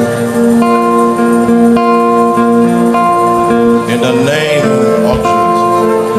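Slow worship music of held guitar chords, with a voice rising briefly over it about four seconds in.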